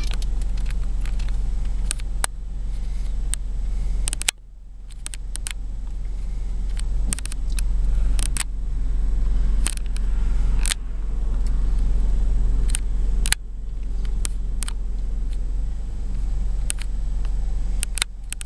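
Burning dry grass and brush crackling with scattered sharp pops over a steady low rumble.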